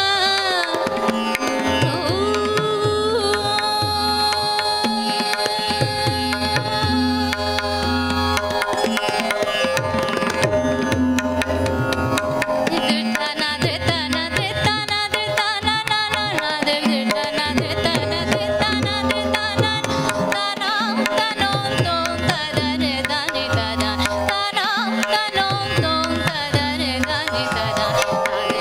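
Hindustani classical vocal: a woman singing with tabla accompaniment, her voice gliding and ornamenting over a steady drone from an electronic tanpura box.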